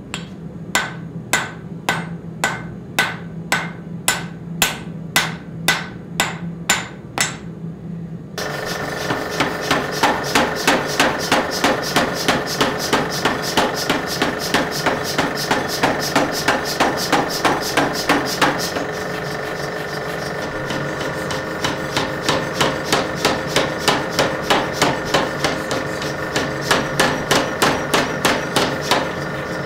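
Hand hammer striking hot steel on an anvil, about two ringing blows a second. About eight seconds in it changes to a mechanical power hammer running and pounding hot steel in rapid blows, several a second. The blows stop for a couple of seconds about two-thirds through while the machine keeps running, then resume.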